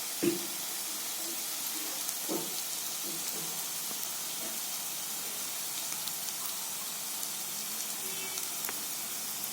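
Prawns pepper fry sizzling in hot oil in a pan: a steady hiss, with a soft low knock about a quarter second in and another about two seconds in.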